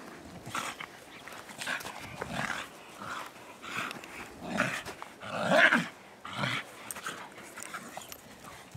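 Dog growling in short bursts while tugging on a ball-on-rope toy, the loudest growl about halfway through.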